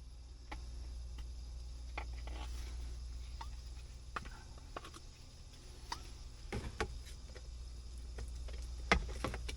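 Scattered light clicks and knocks of things being handled, over a steady low hum, with a sharper click near the end.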